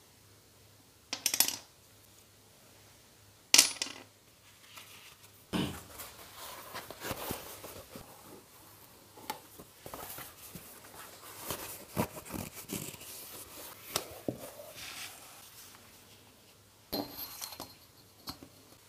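Leather and small metal parts handled on a workbench: two sharp metallic clicks in the first few seconds, then a long stretch of rustling, flexing and small knocks as a stiff leather hide is handled and spread out. Near the end comes a short metallic clatter with a brief ring as a steel ruler is set down on the leather.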